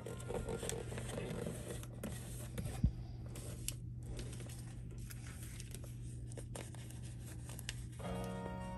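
Quiet background music, with fingers rubbing a paper sticker flat onto a cardboard mug box in the first second or so and a single light knock about three seconds in.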